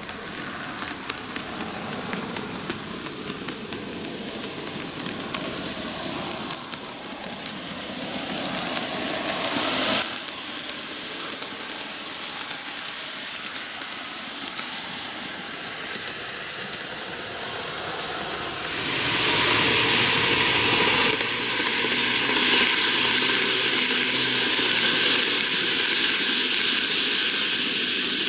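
N-gauge model electric trains of the Keihan 1000 and 7200 series running on canted model track: a steady mechanical running hiss with small clicks from the wheels on the rails. It grows louder about two-thirds of the way through as a train comes close.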